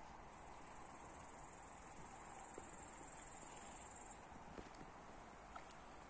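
Faint, high, steady insect trill that stops about four seconds in, with a single short click soon after.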